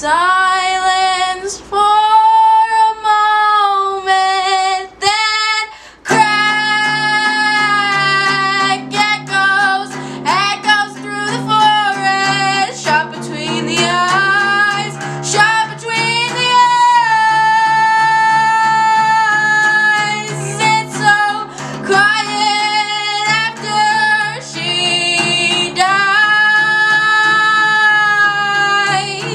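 Music: a solo high voice singing a song, alone at first and joined about six seconds in by guitar accompaniment.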